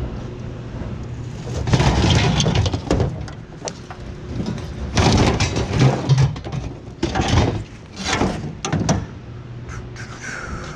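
Cast-iron brake rotors being thrown into a scrap bin: a series of heavy, irregular metal clanks and crashes, four or five bunches of them, over a low steady hum.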